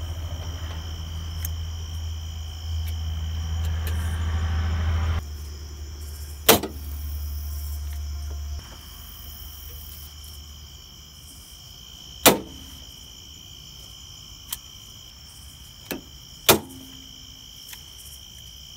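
Hand pop-rivet gun setting the pop rivets of a new hood latch: three sharp snaps, roughly six and four seconds apart, as each rivet's mandrel breaks, with a few lighter clicks between. Underneath, a steady high whine and a low hum that drops off partway through.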